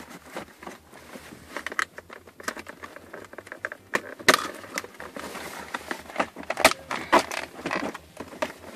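Plastic center-console trim of a car being pried and pulled loose by hand, giving irregular clicks, creaks and rattles. There are sharper knocks about four seconds in and again near seven seconds.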